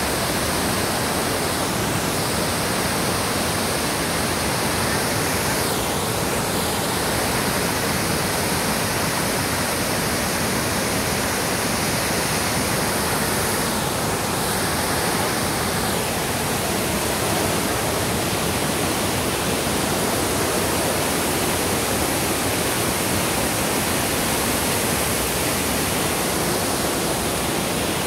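A tall waterfall plunging down a cliff: a steady, unbroken rush of falling water.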